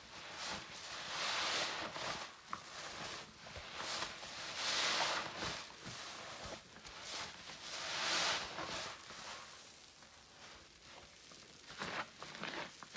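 Sponge soaked in floor-cleaner solution being squeezed: wet squishing swells and fades, loudest about a second, five and eight seconds in, with smaller squelches between and softer ones near the end.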